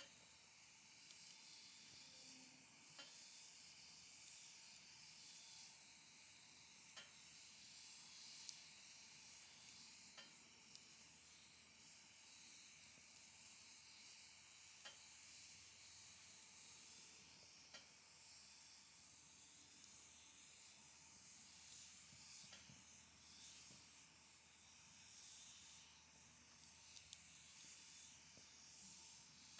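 Firewood burning in a campfire: a faint steady hiss with sharp crackling pops every few seconds.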